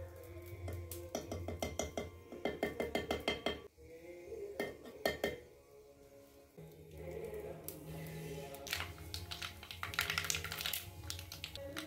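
A metal spoon clinks and knocks against a clay cooking pot in a quick run of strikes. Near the end, fenugreek seeds crackle as they drop into the hot coconut oil. Soft background music plays underneath.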